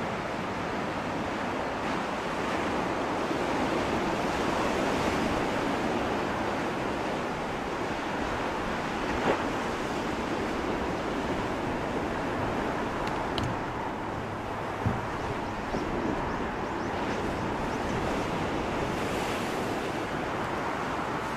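Sea waves breaking and washing on the shore: a steady rushing surf, with two brief faint ticks partway through.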